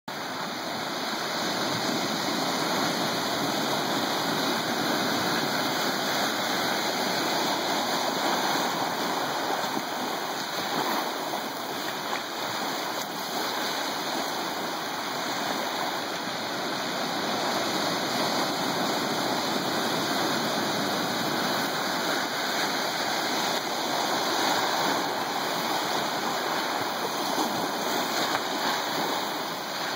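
Ocean surf washing over shoreline rocks: a continuous rushing wash of water that swells and eases gently.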